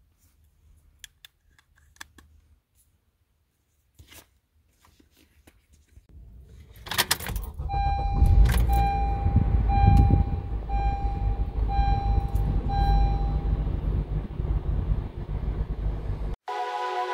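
Faint clicks and a jangle of car keys, then a car engine cranks and starts about seven seconds in and settles into a steady idle. Over the idle a dashboard warning chime beeps six times, about once a second. Music cuts in near the end.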